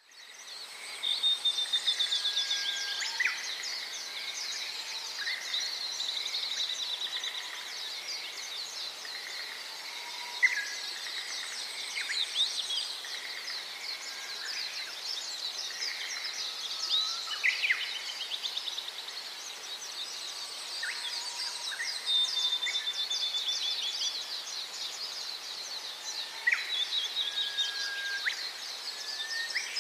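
Many birds chirping and whistling together in a dense, unbroken chorus of short calls. Now and then a faint, very high, thin buzz comes and goes behind it.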